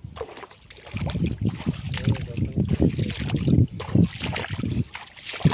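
Water sloshing and splashing around a person wading waist-deep and pushing a bamboo-framed push net through shallow muddy water, an irregular churning that grows louder about a second in.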